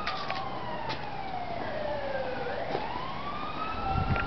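A siren wailing: one long tone slides slowly down in pitch, then climbs back up near the end.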